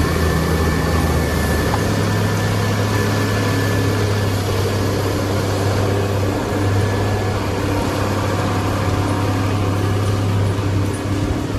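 The diesel engine of a 640H timber machine running steadily under load, a continuous low drone.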